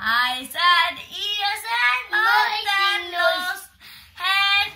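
Young boy singing a nursery rhyme in short phrases, with a brief break about four seconds in.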